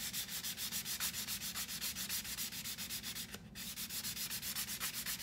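Wooden shim being hand-sanded with a sanding block in quick, even back-and-forth strokes, with a short break about three and a half seconds in. The wood surface is being prepared so the epoxy will bond.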